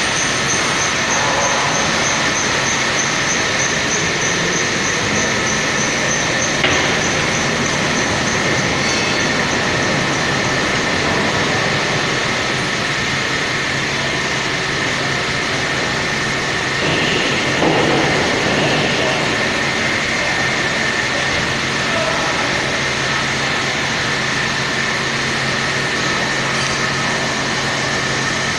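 Steady hum and whine of a hydraulic wheelset press running, with a thin high tone held throughout. A single click about seven seconds in, and a louder rough noise lasting about a second near the middle.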